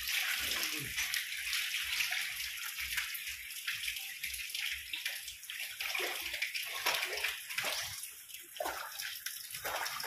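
Water churning and splashing steadily as crowded tilapia and gourami thrash at the surface of a shallow concrete pond.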